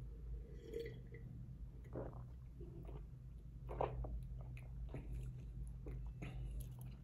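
Faint mouth sounds of a person tasting white wine: a short sip from the glass about a second in, then a few soft, wet, scattered noises as the wine is held and worked around the mouth.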